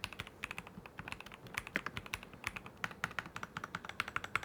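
Typing on a Keychron V1 Max mechanical keyboard with factory-lubricated Gateron Jupiter Red linear switches: a rapid, uneven run of quiet keystrokes. The lubed switches, gasket mount and layers of sound dampening keep it quiet.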